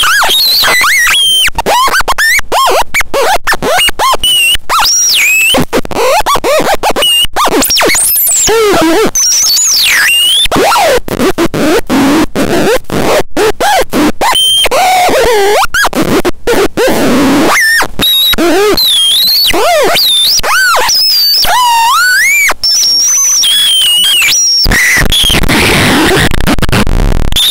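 Catastrophone 3 electronic noise instrument squealing in chaotic, wildly swooping pitches, chopped by frequent sudden cut-outs and crackles; loud throughout, turning to a harsher noisy wash near the end.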